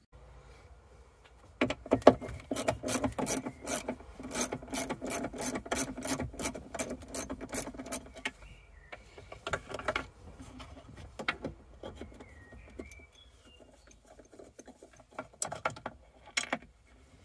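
Socket ratchet on a long extension clicking in a quick, regular run as a bolt is undone, with metal-on-metal rubbing, then slower, scattered clicks and scrapes from about halfway.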